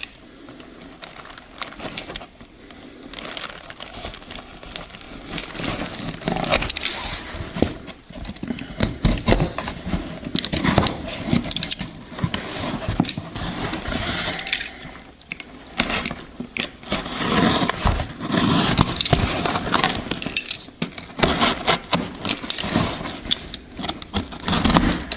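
Snap-off utility knife slitting plastic packing tape along the seams of a cardboard box, with cardboard flaps scraping and rustling as they are worked open. The sound comes in irregular bursts, on and off.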